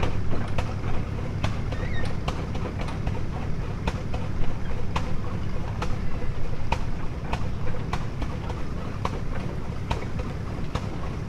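Steam traction engine running as it creeps forward, with sharp regular beats about twice a second over a steady low rumble.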